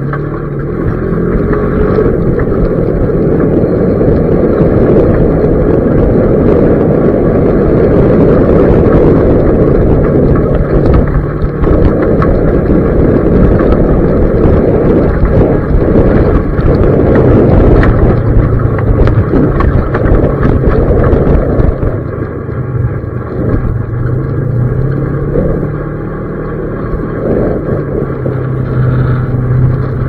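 An off-road vehicle driving on a rough gravel dirt road, heard from on board: the engine's steady hum over the rumble and rattle of the tyres and body on the uneven surface. It eases off a little about two-thirds of the way through, then the engine note rises as it picks up again.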